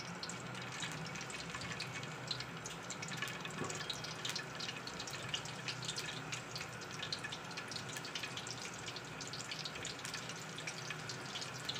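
Whole peeled potatoes frying in oil in an aluminium pot: a steady, gentle sizzle with many small crackles and pops.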